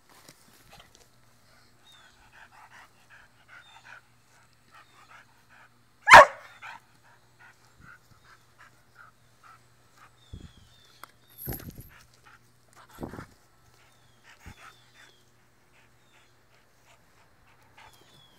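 American pit bull barking once, sharp and loud, about six seconds in, with a few weaker sounds later and faint high whimpers around it.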